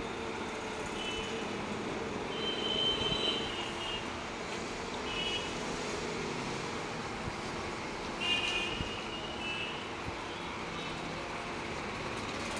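Steady road traffic noise with several brief high-pitched toots.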